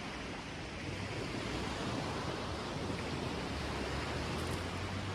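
Sea surf breaking and washing on a sandy shore: a steady rushing wash of waves, with a low rumble under it.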